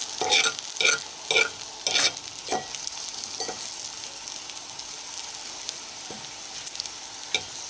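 Puffball mushrooms sizzling in melted butter in a frying pan, with a metal fork scraping and knocking against the pan as they are stirred. The fork strokes come about twice a second for the first two or three seconds, then only now and then over the steady sizzle.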